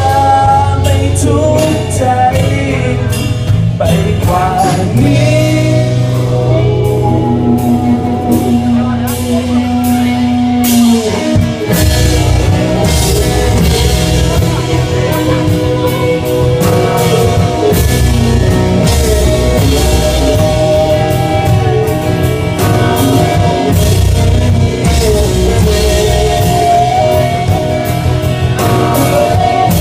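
Rock band playing live: drum kit and guitars with a sung melody line. A held low note breaks off about 11 seconds in, and the full band carries on.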